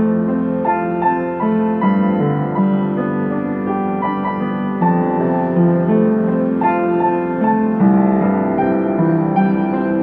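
Piano music with held notes and chords changing about once a second.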